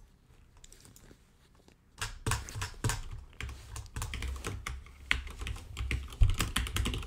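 Typing on a computer keyboard: a run of quick, irregular key clicks that starts about two seconds in, after a near-quiet start.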